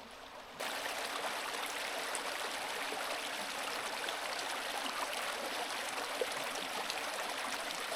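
River water rushing steadily, cutting in suddenly about half a second in.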